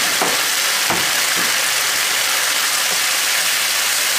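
Schezwan chicken sauce sizzling and bubbling in a frying pan over a high gas flame: a steady hiss with a few faint pops early on.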